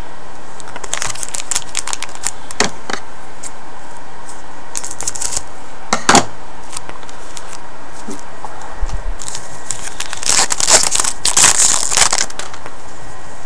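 Hockey card pack wrapper crinkling and tearing as it is opened, mixed with clicks and rustles of cards being handled. The crinkling is densest between about ten and twelve seconds in.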